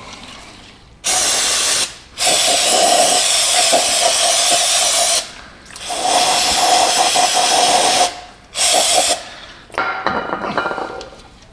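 Aerosol brake parts cleaner sprayed in four hissing blasts into a fuel filter sediment bowl, flushing out sediment and algae-like sludge. The first and last blasts are short and the middle two run a few seconds each, with a steady whistle from the nozzle under the hiss.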